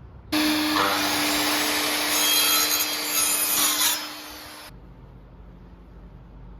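Circular saw cutting through a wooden board for about four seconds: the blade's loud cutting noise over a steady motor note. It starts suddenly and cuts off near the end.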